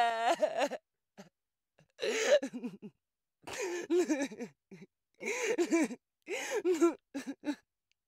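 A woman crying and sobbing in about five wavering, breaking vocal bursts, with short silences between them.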